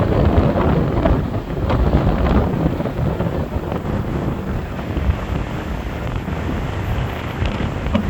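Strong wind buffeting the microphone in a low, rumbling rush, over the surf of a stormy ocean.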